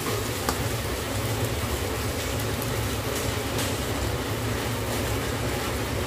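Omelette frying in a pan on a lit gas burner: a steady hiss over a low rumble, with a few faint clicks of a metal spatula against the pan.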